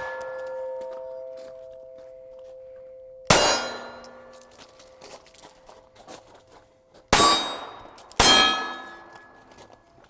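Pistol shots hitting steel targets, each impact leaving the steel plate ringing with a clear metallic tone that fades slowly. Three hits, about three seconds in, about seven seconds in and again a second later, with the ring of an earlier hit dying away at the start.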